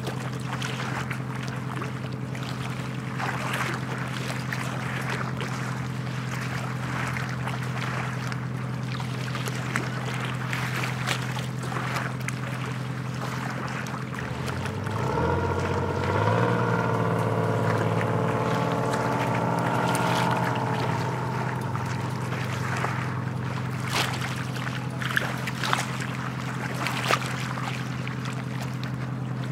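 A small sailboat's motor runs steadily at low revs. About fifteen seconds in it is throttled up and runs louder and higher for some six seconds, then drops back to its earlier pace. A few sharp clicks come near the end.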